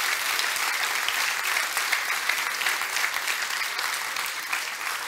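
Audience applauding, fading a little toward the end.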